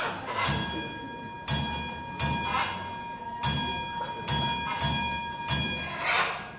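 A small bell struck about seven times at uneven intervals, each strike ringing on and fading before the next, rung by a trained parrot counting out its answer to a sum.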